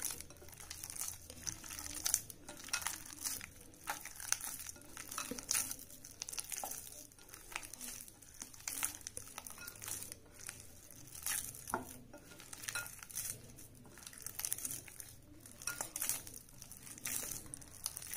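Soft, sticky maida (refined flour) dough being squeezed and kneaded by hand in a glass bowl: a continuous, irregular crackle of short, sharp squelching sounds, mostly high-pitched.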